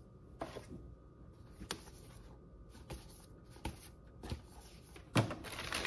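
Stiff cardstock game cards being handled and shuffled through by hand: scattered soft clicks and slides, then a louder rustle about five seconds in.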